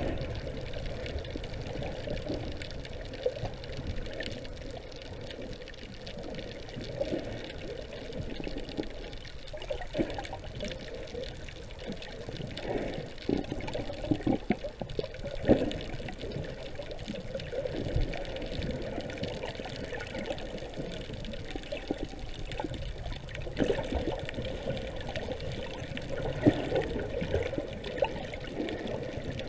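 Water sloshing and gurgling around a camera held under water, muffled and steady, with scattered small clicks and knocks.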